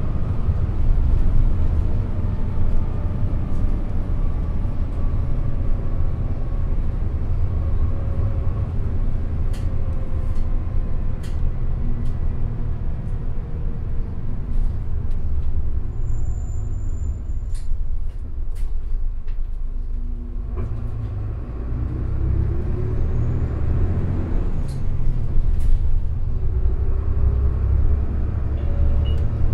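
A 2014 Isuzu Erga city bus's four-cylinder diesel engine and running gear rumbling while under way, heard from inside the passenger cabin. The engine note eases and falls off to its quietest about two-thirds of the way in. It then picks up again with a rising pitch as the bus accelerates.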